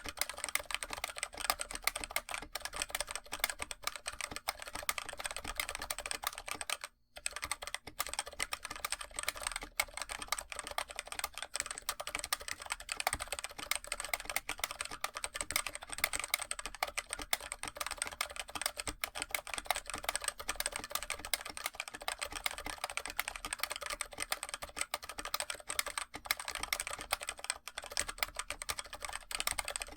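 Fast, continuous typing on a NovelKeys NK65 aluminum mechanical keyboard with stock TTC Bluish White tactile switches, whose bottom-out is muted rather than silent. There is a brief pause about seven seconds in.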